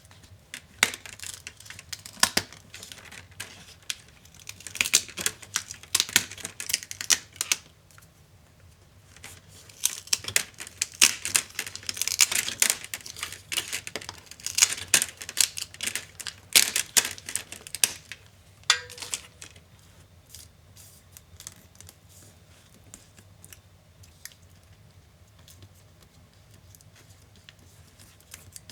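Acer Swift SF315 laptop parts being worked apart by hand: rapid clicking, scraping and crinkling of plastic and small components, busiest for the first two-thirds. A brief squeak follows, then only scattered light ticks.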